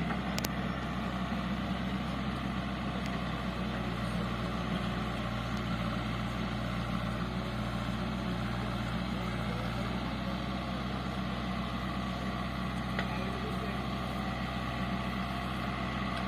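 JCB 3DX backhoe loader's diesel engine running steadily at an even speed.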